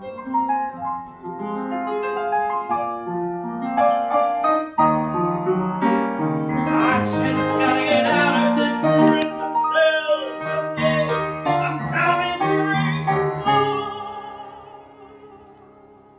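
Upright piano played live, a flowing melody over chords; the music fades away over the last couple of seconds.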